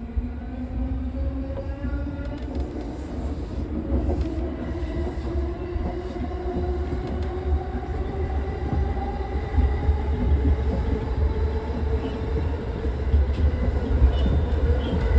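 Electric commuter train running, its traction motors giving a whine that rises slowly and steadily in pitch as it gathers speed, over a steady low rumble of wheels on the rails. A few sharp clicks come near the end.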